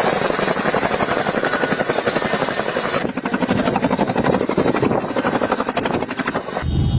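Aircraft running, a dense noisy drone with a rapid chopping pulse that grows more distinct about three seconds in.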